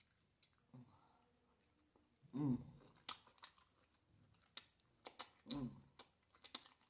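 Close-up mouth sounds of eating a sauced steamed shrimp: wet lip smacks and tongue clicks while chewing and sucking sauce off the fingers, with two short hummed "mm" sounds, one about two and a half seconds in and one near the end.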